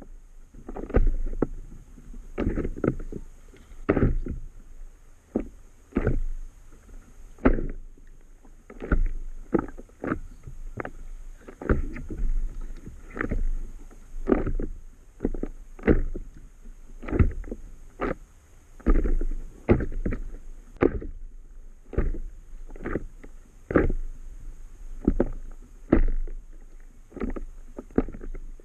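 Small waves slapping and sloshing against the hull of an inflatable stand-up paddle board (Itiwit 11), irregular thuds and splashes about once or twice a second.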